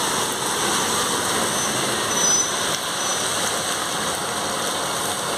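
Heavy rain falling onto a flooded sidewalk: a steady, even hiss of drops striking standing water.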